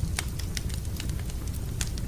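Wood fire crackling in a fireplace: irregular sharp pops and clicks over a steady low rumble.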